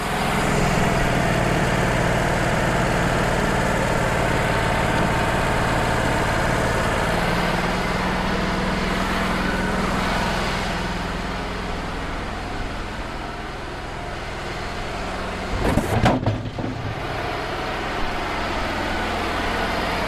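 Wood-Mizer LT35 portable sawmill's engine running steadily between cuts, dropping a little quieter partway through, with a brief louder burst of noise about sixteen seconds in.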